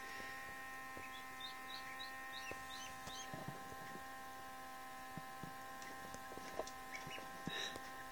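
Newly hatched Indian Runner × Khaki Campbell duckling peeping faintly: a quick run of about eight short high chirps in the first few seconds, then a few more near the end. Under it runs the steady electric hum of the incubator.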